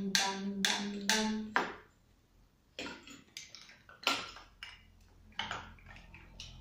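A quick run of about five short pitched notes with sharp attacks in the first second and a half. Then scattered knocks and clatter of toys being rummaged in a wooden crate.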